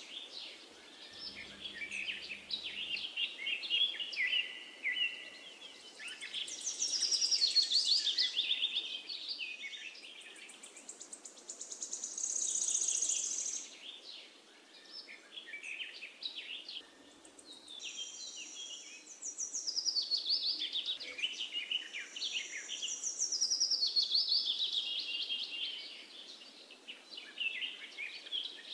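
Songbirds singing and chirping, several overlapping songs with rapid trills and high repeated notes, rising and falling in waves.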